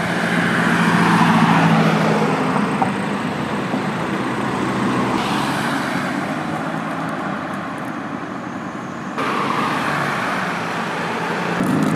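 Road traffic noise: cars passing on a city street, with a stopped car's engine idling close by in the first couple of seconds. The sound changes abruptly about five and nine seconds in.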